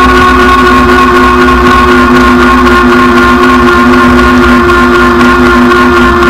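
Rad Power electric bike's hub motor whining steadily at cruising speed, several held tones over a low wind rumble on the bike-mounted camera's microphone.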